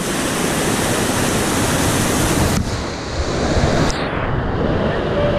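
Loud rushing whitewater as a raft drops down a river waterfall into the churning pool below; about halfway through the sound abruptly turns duller and muffled.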